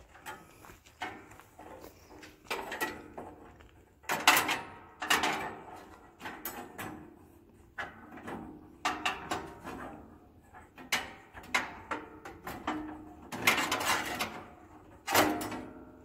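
A steel bandsaw blade being worked onto the band wheels of a Wood-Mizer LT15 sawmill: irregular metal clanks and rattles of the thin band against the wheels and housing, some with a short ring, loudest about four seconds in and near the end.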